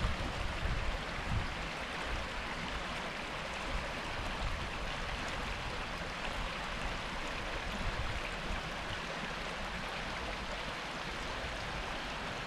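Waterfall and stream water rushing steadily over rocks, with low rumbles of wind on the microphone now and then.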